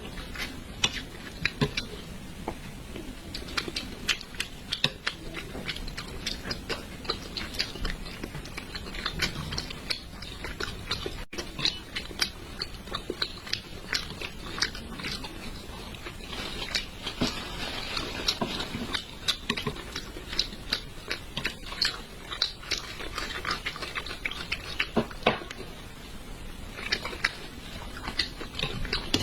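Close-miked mukbang eating of spicy braised fish: a continuous run of wet chewing, lip smacks and biting clicks.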